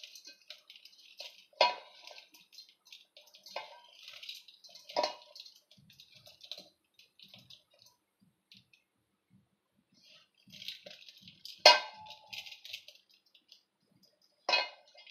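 Hands rubbing and squeezing a crumbly thekua dough of flour, sugar and ghee in a stainless steel bowl: a soft, crackly rustle. Every few seconds comes a sharp clink with a short ring as the steel bowl is knocked, loudest about twelve seconds in.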